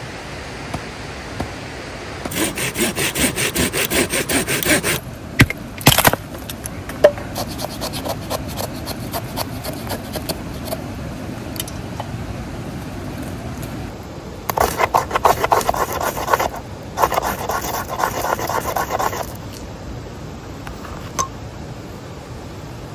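Hand saw cutting wood in quick, even strokes, about four or five a second, in three bouts, with a few sharp knocks between the first and second. A steady rush of stream water runs underneath.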